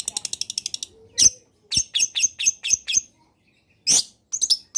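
Long-tailed shrike (cendet) singing. A fast, even, high trill breaks off about a second in, followed by harsh scratchy notes, a run of about six at roughly four a second, and another loud harsh note near the end.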